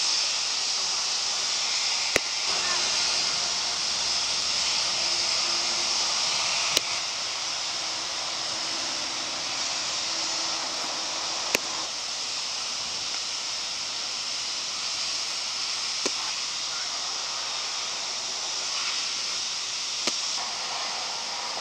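Baseball pitches popping into a catcher's leather mitt: five sharp single pops about every four to five seconds, over a steady outdoor hiss.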